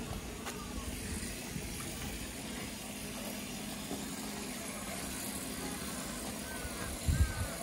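Steady low outdoor background rumble, with a brief low thump about seven seconds in.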